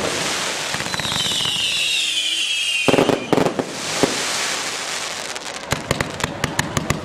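Fireworks going off over a steady hiss. A whistle falls in pitch for about two seconds, a sharp bang comes just before three seconds in, and a quick run of crackling pops starts near the end.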